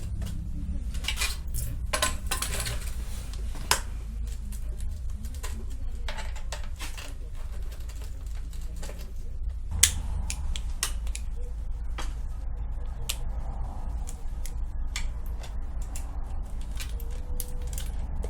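Irregular light metallic clicks and ticks, with a few sharper knocks about four and ten seconds in, over a steady low hum, as bicycle saddle parts are handled and refitted with tools.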